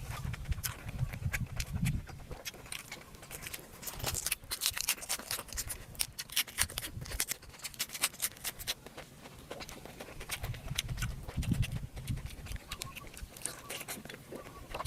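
A person eating cooked pork close to the microphone: chewing and mouth smacking make a rapid, irregular run of wet clicks. Low thuds come at the start and again about eleven seconds in.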